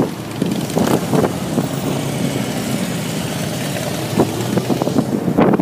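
Cruiser motorcycle engine running at a steady low pitch close by, mixed with road and traffic noise.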